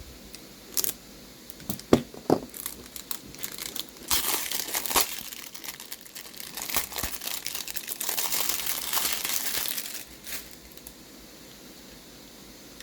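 Packaging being cut open and unwrapped: a few sharp clicks, then crinkling and tearing of wrapping material, loudest about four seconds in and again from about eight to ten seconds in.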